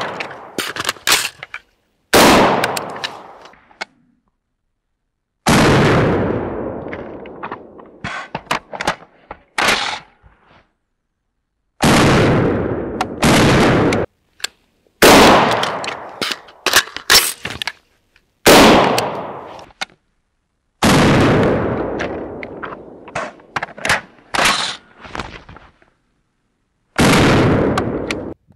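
AR-15 rifle fired in single shots, about ten of them a few seconds apart at uneven spacing, each followed by an echo that dies away. Lighter metallic clicks come between the shots, as the magazine is changed and the bolt released during reload drills.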